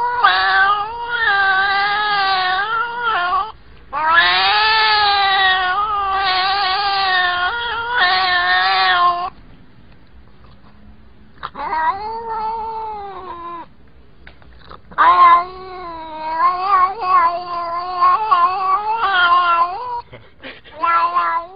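Black-and-white domestic cat yowling in four long, drawn-out calls whose pitch wavers up and down, with short pauses between them.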